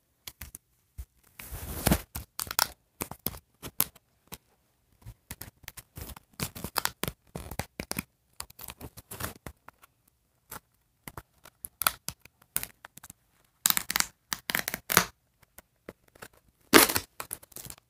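Plastic packaging on a toy can being torn and crinkled by hand in irregular rustling bursts. The louder tearing comes about two seconds in and again near the end.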